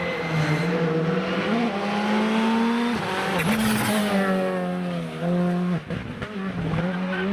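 Rally car engine running hard at high revs, its pitch climbing and then stepping down several times as the driver shifts and lifts, with a brief drop in level about six seconds in.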